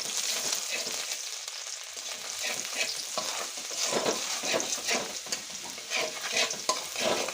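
Chopped garlic sizzling in hot oil in a kadai, with a spatula stirring and scraping against the pan in irregular strokes, more often from about two seconds in.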